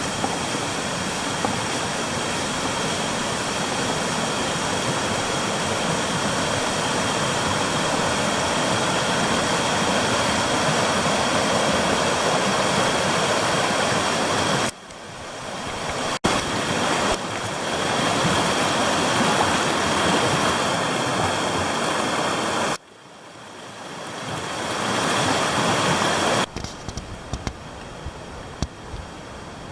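Rushing mountain stream: a loud, steady roar of water that drops off sharply a few times, quietest near the end.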